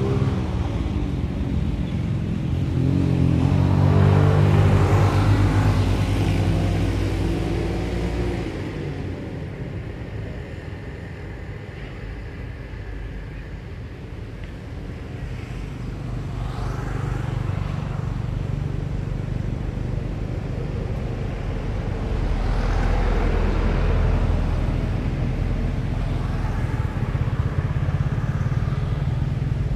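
Motor vehicles passing on a road: an engine swells and fades a few seconds in, and after a quieter stretch in the middle, engine sound builds again and stays through the second half.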